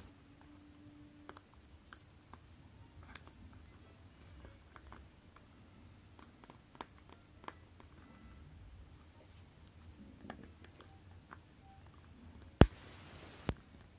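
Faint scattered clicks and light scrapes of steel tweezers on the small steel parts of a Citizen 8110A chronograph movement being assembled by hand. Near the end there is one sharp, loud click, a short hiss, and a second, softer click under a second later.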